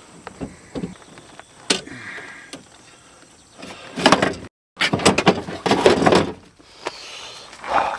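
Steel window regulator clanking and scraping against the door's sheet-metal inner panel as it is worked into position by hand. A few separate sharp knocks come first, then a denser rattling clatter past the middle, broken by a brief dropout.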